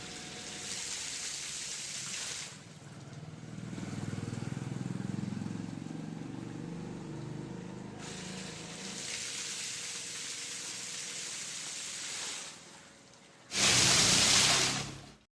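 Water rushing and splashing from a freshly rewound 1.5 HP V-Guard submersible sewage pump on its test run after its burnt winding was replaced. The sound changes abruptly a few times, and the loudest rush of water comes near the end.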